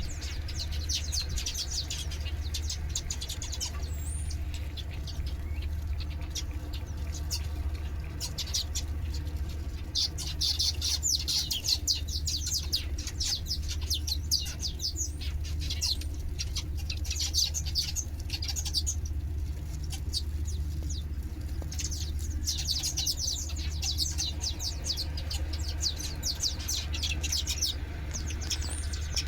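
Many small birds chirping in rapid, overlapping chirps, in busier bouts that swell and fade, over a steady low hum.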